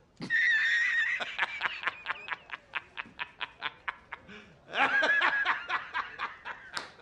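A man laughing hard: a drawn-out high opening cry, then a rapid run of 'ha' pulses, a short break, and a second bout of laughter.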